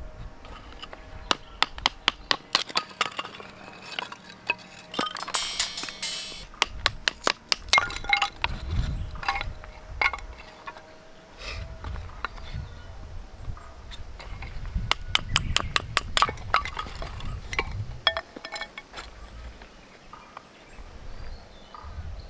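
Repeated light clinks and taps of cookware and utensils being handled, with a dense crackly rustle about five seconds in.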